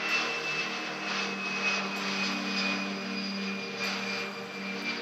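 Airbus A320-family twin-engine jet airliner climbing out at takeoff thrust: a steady engine rumble with a high whine that slowly falls in pitch.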